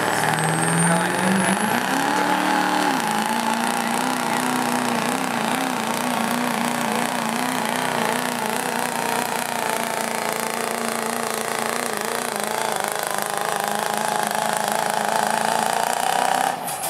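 Diesel pickup truck's Duramax turbo-diesel V8 at full throttle while pulling a weight-transfer sled. The engine note climbs in pitch about two seconds in, then holds at high revs with a quick, regular waver.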